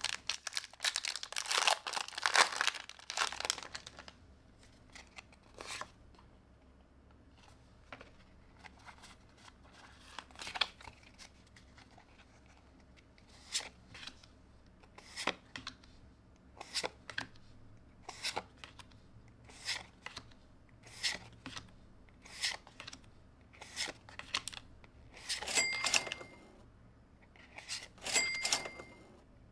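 Foil booster-pack wrapper crinkling and tearing open for the first few seconds, then trading cards being flipped through one at a time, with a short card click about every second and a half. Two brief high tones sound near the end.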